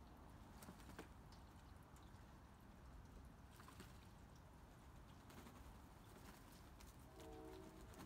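Near silence: faint outdoor background with a low rumble and a few faint ticks, and a faint pitched sound starting near the end.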